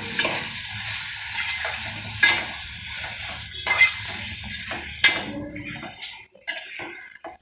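A metal utensil clinking and knocking against a cooking pot, with separate strikes about a second apart, over a hiss that fades away.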